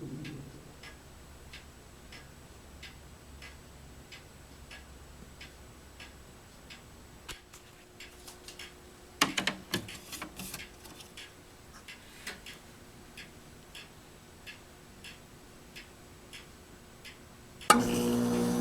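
Steady ticking about twice a second, like a clock, over a faint low hum that dies away about seven seconds in as the air conditioner's fan finishes winding down. A short cluster of clicks and knocks comes about nine seconds in, and near the end a louder steady machine hum starts suddenly.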